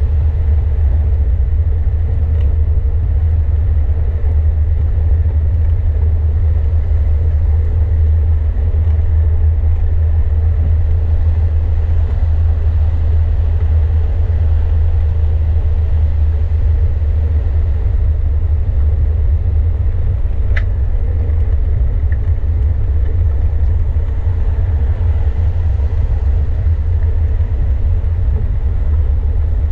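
Wind buffeting the microphone while riding a bicycle: a steady, loud low rumble with a noisy hiss of road noise above it and a couple of light clicks.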